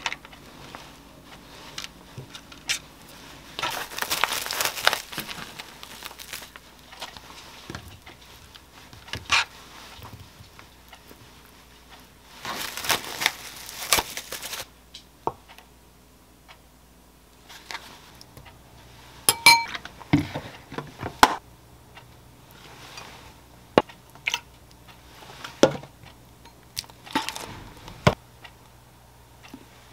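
Plastic bag crinkling in two bursts, about four seconds in and again around thirteen seconds, as cockles are emptied from it. In the second half come a series of sharp clinks and knocks from a metal spoon, bottles and a glass mixing bowl.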